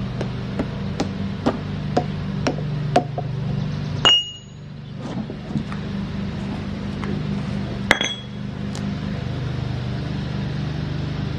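A hatchet striking a log while bark is stripped off it: a run of about seven strikes, roughly two a second, then two louder, sharp metallic clangs that ring briefly, about four and eight seconds in.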